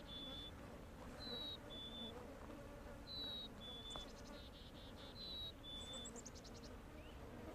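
Faint songbird whistling a clear two-note song, a high note followed by a slightly lower one, repeated about every two seconds, with a few fast trills in between.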